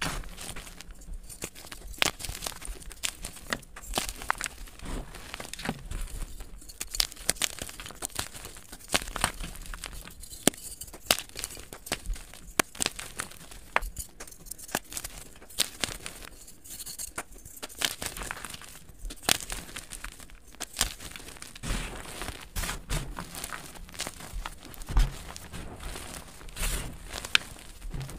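Blocks of dyed gym chalk crushed and crumbled by hand into powder, sped up: a dense, irregular run of dry crackles and crunches over soft powdery rubbing.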